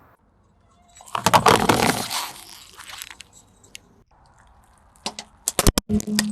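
Brittle objects being crushed under a car tyre: a dense crunching, crackling burst about a second in, then several sharp separate cracks near the end, followed by a brief low steady hum.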